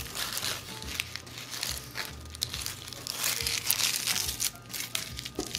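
Dry papery skin of a white onion crinkling and tearing as it is peeled off by hand, in a rapid run of small crackles, over background music.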